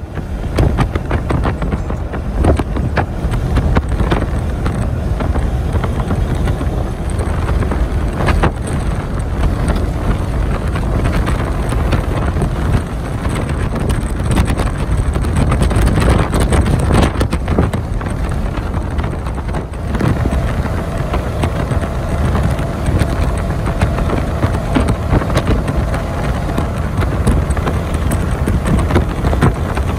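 Freightliner Cascadia semi truck at highway speed, heard inside the cab: a steady rumble of road and wind noise with frequent rattles and knocks.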